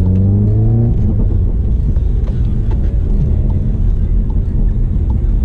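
Inside the cabin of an APR Stage 2 tuned 2017 VW MK7 GTI: the turbocharged four-cylinder's note rises under acceleration for about the first second, then settles into a steady low engine and tyre rumble on wet pavement.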